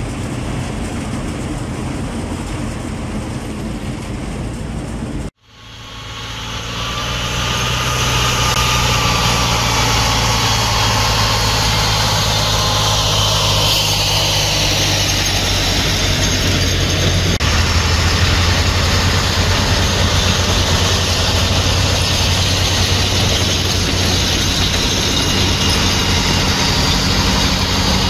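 Engines and tracks of a column of WWII German halftracks driving, a steady low engine drone with higher whining tones that slide in pitch above it. The sound cuts out abruptly about five seconds in and fades back up over the next few seconds, louder than before.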